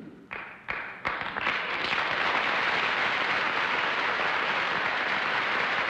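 Studio audience applauding: a few scattered claps at first, filling out within about two seconds into steady applause.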